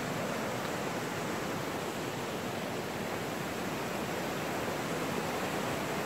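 Steady rushing of a mountain river tumbling over rocks and boulders, an even, unbroken hiss.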